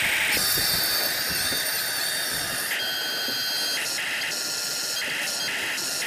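Huina 1550 RC excavator driving on its tracks: a high electric whine from the small drive motors with the rattle of the tracks, coming in short on-and-off spurts.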